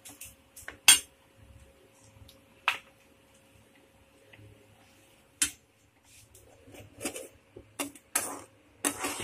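A spatula knocking against an aluminium pan of sugar syrup as rusk slices are pressed into it: three sharp clinks a second or two apart. In the last few seconds comes a quicker run of scraping and stirring sounds against the pan.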